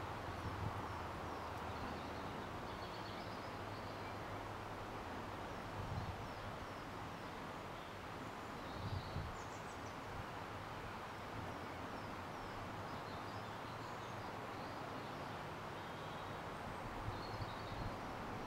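Small birds chirping repeatedly over a steady low rumble from a distant approaching diesel locomotive, with a couple of brief soft knocks about six and nine seconds in.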